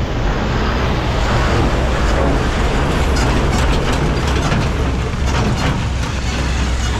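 Heavy road traffic: a steady, loud low engine rumble from vehicles, with some rattling clatter around the middle.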